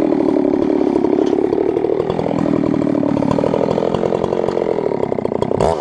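Husqvarna 372XP two-stroke chainsaw running steadily under load in a chainsaw mill, ripping through a pine log. Near the end the engine pitch swings sharply up and down.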